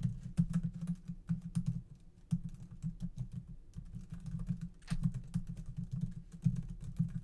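Typing on a computer keyboard: quick runs of keystrokes entering a line of text, with a brief pause about two seconds in.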